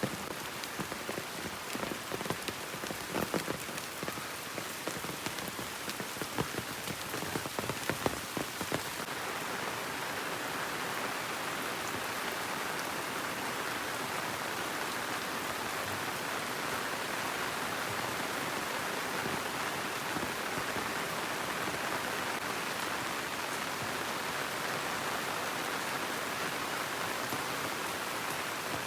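Rain falling steadily, with scattered sharp drops striking a surface in the first third. It then settles into an even, slightly louder hiss.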